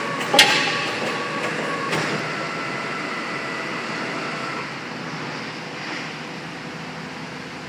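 IPH250 hydraulic piling machine running steadily as it hoists a concrete pile upright into position. There is a sharp clank about half a second in and a lighter knock at about two seconds, and the running noise eases slightly after that.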